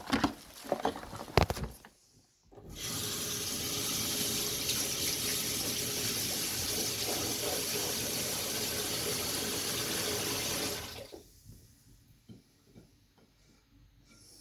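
A few sharp knocks and clatters, then a water tap running steadily for about eight seconds before it is turned off.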